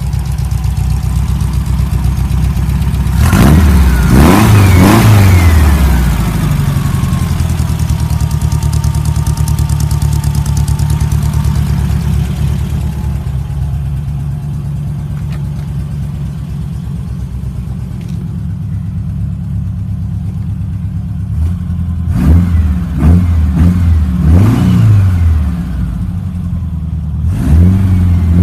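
Air-cooled Volkswagen flat-four with twin carburettors in a Baja Bug, running on a short exhaust. It is revved twice quickly a few seconds in, idles steadily, then is revved in a run of short quick blips near the end.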